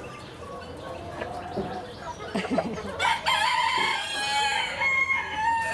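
Rooster crowing: one long cock-a-doodle-doo starting about three seconds in and lasting nearly three seconds.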